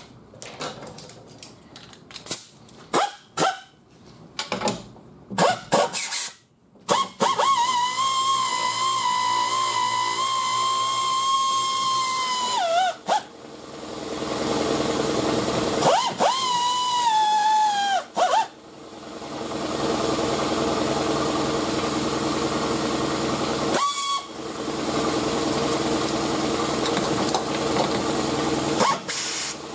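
Pneumatic 1/4-inch stubby air ratchet running in long bursts, with a high steady whine that sags in pitch at the end of each run, as it spins off the nuts that hold the window glass to the regulator. A few clicks come first as the socket goes onto the nut, and a longer, hissier run follows later.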